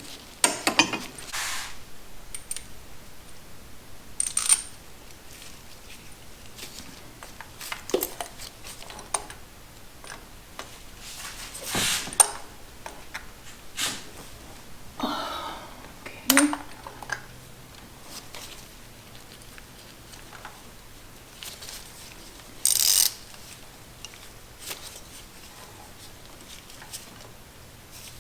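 Scattered metallic clinks, taps and rattles of hand tools and small parts being handled, with a few short rustling hisses, one of them about 23 seconds in.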